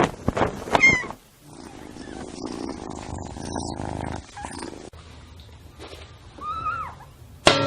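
A cat meowing twice: a short call about a second in and a longer one near the end, with a rough, noisy stretch between them.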